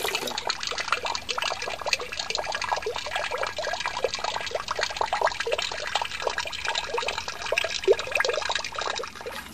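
Water trickling and dripping in a barrel slow sand filter, many small drops splashing in quick, irregular succession. This is a flushing run through the new filter to wash out silt.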